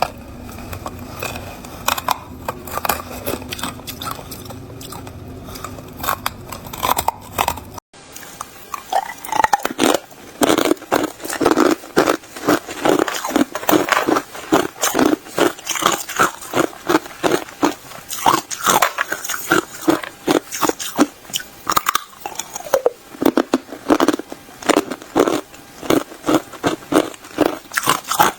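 Ice being chewed close to the microphone: a steady run of sharp crunches. It is softer at first, then after a sudden cut about eight seconds in turns louder and faster, about two or three crunches a second.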